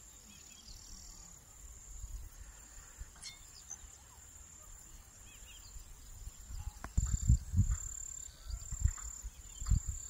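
Steady high-pitched insect trill, breaking into regular pulses in the second half, with faint short bird chirps. About seven seconds in, loud low thumps and rumbles on the microphone take over as the loudest sound.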